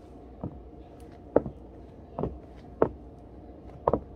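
High-heeled platform sandals with shiny plastic heels stepping on a hardwood floor: five heel strikes at an uneven walking pace, the last a quick double strike.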